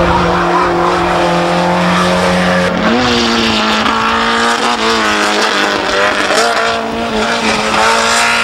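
Racing car engine running hard on a hillclimb, its pitch rising and dropping several times as the car accelerates and shifts gear.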